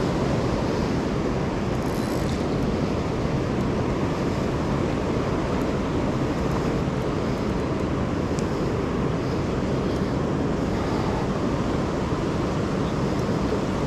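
Steady rush of fast river current, mixed with wind noise on the microphone, an even noise with no distinct events.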